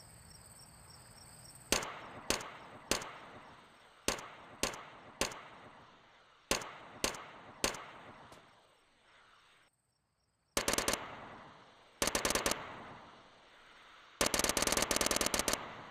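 Integrally suppressed H&K MP5SD 9 mm submachine gun firing. First come three groups of three single shots, each ringing off briefly. Then come two short full-auto bursts and a longer one of about a second and a half near the end.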